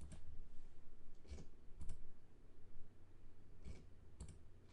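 Computer mouse clicking a handful of times, several clicks in quick pairs, with short gaps between them.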